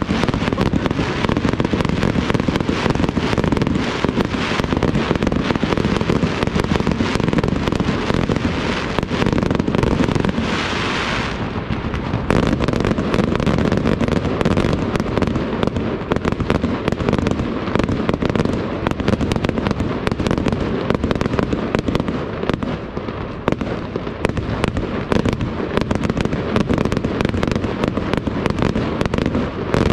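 A fireworks display going off in a dense, continuous barrage of aerial shells, with many rapid bangs and crackling throughout. A brief hiss rises about ten seconds in.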